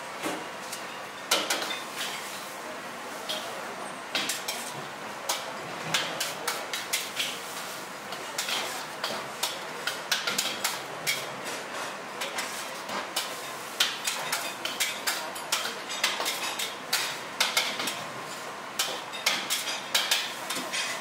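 Metal ladle scraping and clanking against a steel wok as noodles are stir-fried, in quick irregular strikes over a steady hiss.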